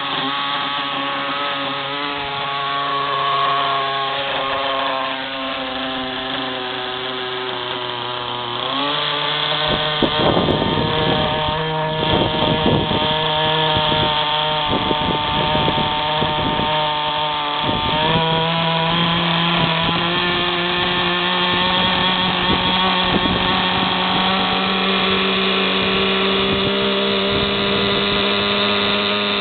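Nitro glow engine of a Thunder Tiger Raptor 50 RC helicopter running, its pitch stepping up about nine seconds in and again around eighteen seconds, with uneven choppy pulsing in between.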